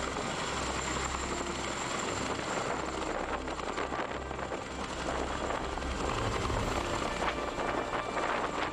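Boeing CH-47 Chinook tandem-rotor, twin-turbine helicopter hovering and landing close by: steady rotor and engine noise with the rush of its downwash.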